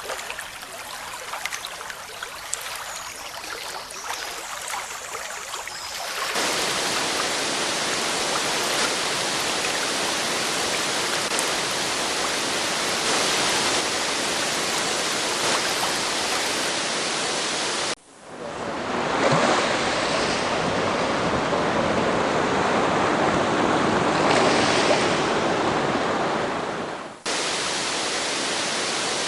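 Waterfall water pouring and splashing as a continuous dense rush, built from several spliced recordings. For about the first six seconds it is a lighter, splashier flow, then it switches abruptly to a heavier, even rush. About eighteen seconds in the sound dips for a moment and swells back louder, then drops back to the even rush a little before the end.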